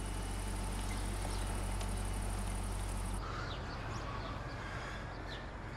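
Steady outdoor background hum with a faint high whine, which gives way about three seconds in to quieter open-air background with a few short bird chirps.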